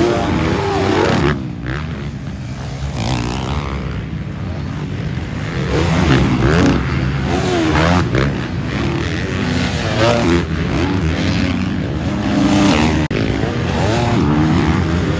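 Several dirt bike engines revving hard at once, their pitches repeatedly rising and falling with throttle and gear changes as they race around a motocross track.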